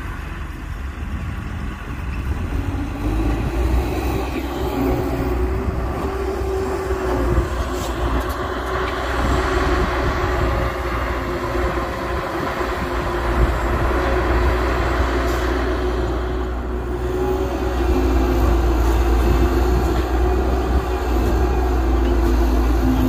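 Heavy diesel earth-moving machinery at work: an excavator's engine with a dump truck alongside, running steadily with a deep low rumble. It grows louder over the first few seconds.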